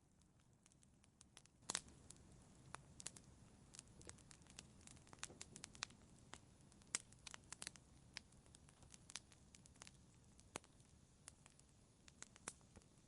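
Wood fire in a fireplace crackling: irregular sharp pops and snaps, the loudest about two seconds in, over a faint low rumble.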